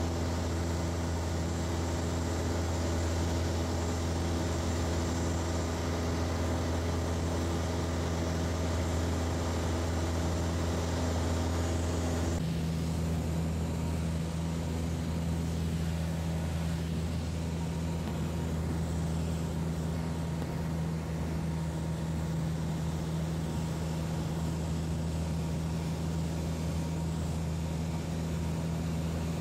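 Piper PA-28 single-engine light aircraft's piston engine and propeller drone heard inside the cabin in steady cruise. The tone shifts abruptly about twelve seconds in, then carries on steady.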